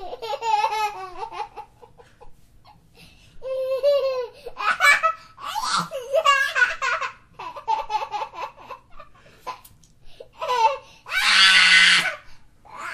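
A baby laughing in repeated bouts of high, bubbling giggles with short breaks between them, then a loud, breathy shriek of laughter for about a second near the end.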